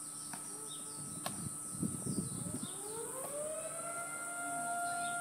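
A siren winding up about two and a half seconds in, rising in pitch and then holding a steady tone.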